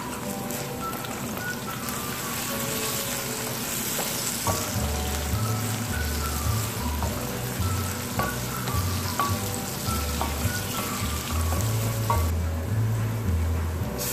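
Sliced onions and green chillies sizzling steadily in hot oil in a steel wok as they are stirred with a wooden spatula. Background music with a bass line plays over it.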